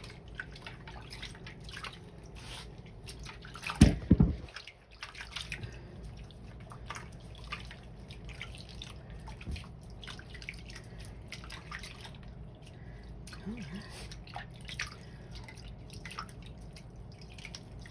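Water dripping and splashing in small irregular ticks while a baby macaque is washed by hand in a bath, with one loud thump about four seconds in.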